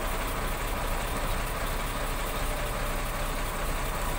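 Heavy vehicle's engine idling steadily.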